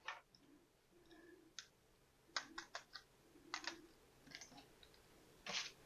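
Faint, scattered clicks and light taps of hard plastic toy parts and packing plastic being handled.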